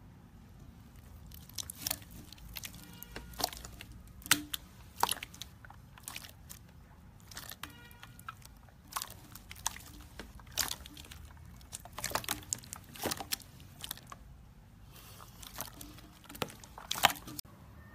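Clear slime full of air bubbles being pressed and squeezed by hand, giving irregular sharp clicks, pops and squelches, some in quick clusters.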